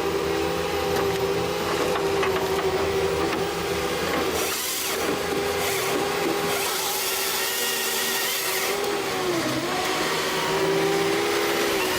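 A motor-driven saw running at high speed and cutting wood: a steady whine whose pitch dips briefly a few times as the cut loads it, with stretches of hissing noise.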